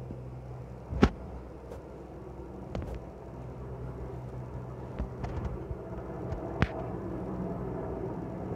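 Steady, distant rumble of a military helicopter passing overhead. Several sharp clicks stand out over it, the loudest about a second in and another about two-thirds of the way through.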